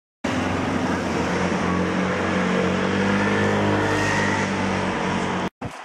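A large truck's engine running steadily, a constant low hum with no revving. It starts suddenly and cuts off abruptly near the end.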